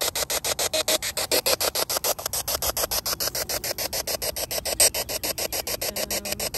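Spirit box sweeping through radio frequencies, its static chopped into rapid, even bursts about eight times a second, with one louder burst about two-thirds of the way through.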